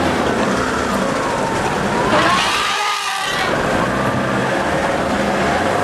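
Car engine idling steadily under outdoor noise, with a short wavering pitched call about two seconds in.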